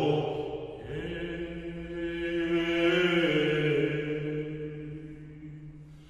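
Men's voices chanting a haidut song in a long, drawn-out held note. The pitch shifts about halfway through, then the note fades away near the end.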